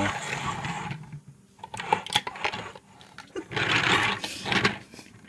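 Plastic toy car's wheels rolling and rattling across a wooden tabletop in two spells of about a second each, with a few light clicks in between.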